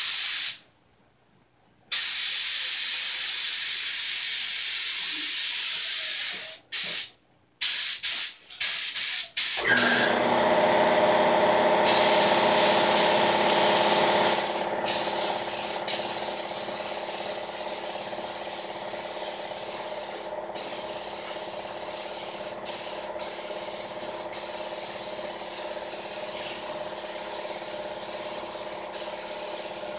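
Air spray gun hissing as clear coat is sprayed, in stretches that stop and start with the trigger during the first ten seconds. About ten seconds in, a steady motor hum with a pitched drone starts and runs under the continuing spray hiss.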